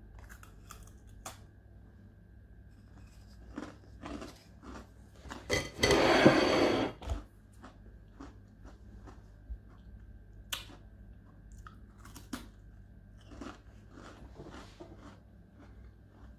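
A ginger cookie being bitten and chewed, with short crunches scattered through. About six seconds in there is a louder burst of noise lasting just over a second.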